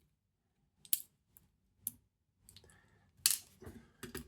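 Sharp little metallic clicks and taps as tweezers pick out and set down the tiny driver pins of a dimple lock, a few separate ones at first and a louder cluster near the end.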